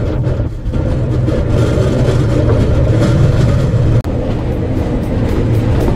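Pedal-powered rail bike's steel wheels rolling along the rail track, a loud steady low rumble that breaks off for an instant about four seconds in.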